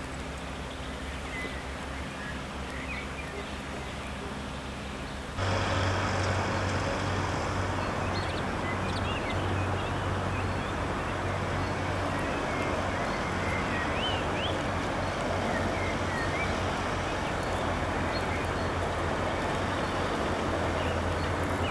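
Outdoor ambience with birds chirping in short rising calls. About five seconds in, it cuts abruptly to a louder steady rushing noise with a low hum, and the birds go on chirping over it.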